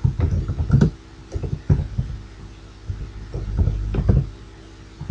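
Computer keyboard keystrokes, heard as a string of irregular dull knocks, over a steady low electrical hum.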